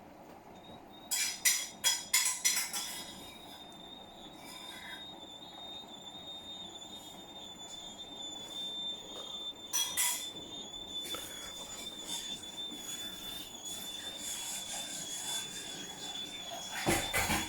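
A Hotpoint appliance squeaking badly: a steady, high-pitched squeal that wavers slightly, over a run of loud sharp knocks and clatters about a second in, another knock near the middle and more near the end.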